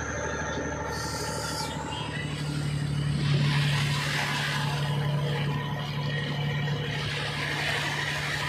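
Fishing boat's engine running steadily under load while it tows a disabled boat, over water rushing and splashing against the hull. Both get louder about two and a half seconds in.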